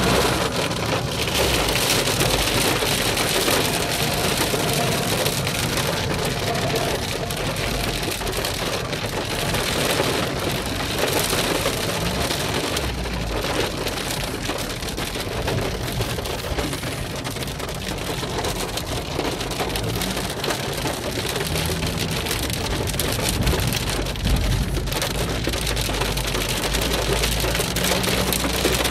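Heavy rain falling on a car's roof and windshield, heard from inside the car's cabin as it drives.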